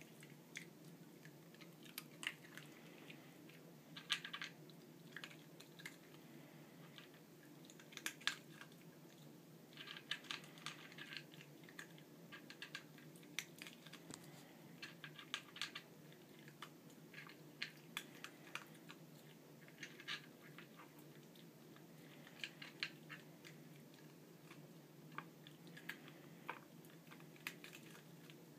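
Papillon eating dry kibble from a Nina Ottosson Dog Tornado plastic puzzle feeder: crunching and nosing the kibble out, with sharp clicks of kibble and plastic tiers knocking. The clicks come in irregular flurries, several seconds apart.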